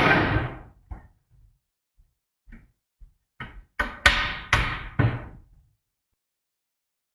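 Knocks and taps of melamine furniture parts being handled and fitted together during assembly of an office desk workstation: one loud knock that rings out briefly, a few light taps, then four loud knocks in quick succession a little past halfway.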